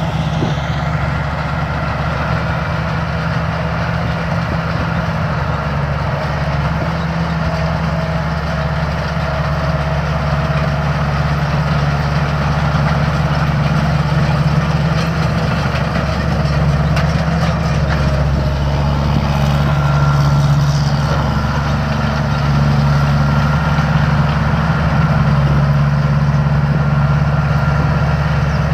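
Rice combine harvester's diesel engine running steadily, a little louder in the second half.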